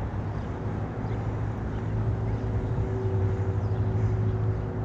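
Low, steady rumble of a motor vehicle engine, with a faint hum on top, swelling a little around the middle and then easing off.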